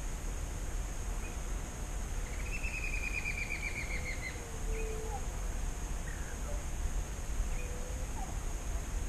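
Outdoor scrubland ambience with a steady low wind rumble on the microphone and a constant high insect whine, crossed by one bird trill lasting about two seconds a little after the start. A few faint short calls sound far off.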